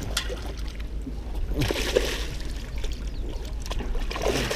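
A hooked largemouth bass splashing in shallow water at the shoreline as it is brought in and grabbed by hand, with water sloshing against the rocks; the splashing comes in uneven bursts, strongest about two seconds in.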